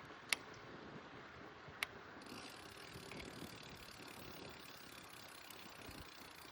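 Bicycle drivetrain: two sharp clicks about a second and a half apart, then the freewheel's fast, faint ticking as the bike coasts.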